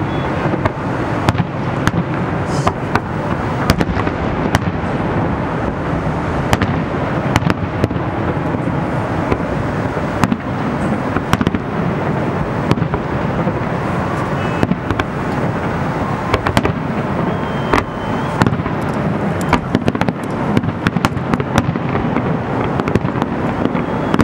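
Aerial fireworks shells bursting in quick succession: a dense barrage of sharp bangs over a continuous rumble of booms and crackle.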